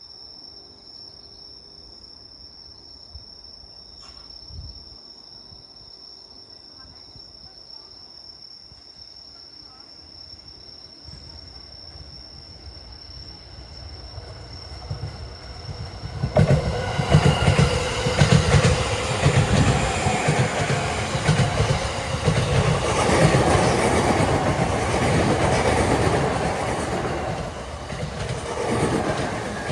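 A JR East E231 series 1000 subseries and E233 series 3000 subseries electric multiple-unit train approaching and passing through an overhead-wire air section. Its sound builds gradually, then from about halfway through the passing cars are loud, with wheels clattering over rail joints, easing slightly near the end.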